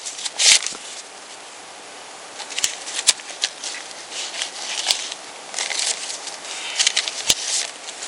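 Paper banknotes being handled and flicked through as a stack of cash is counted by hand: a series of short, crisp rustles at irregular intervals.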